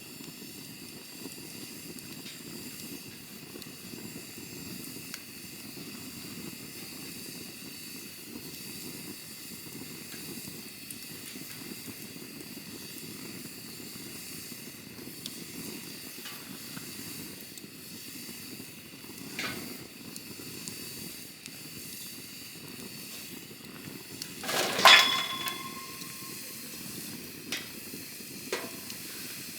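Campfire of burning wood hissing steadily, with a few sharp crackling pops; the loudest pop, near the end, rings briefly after it.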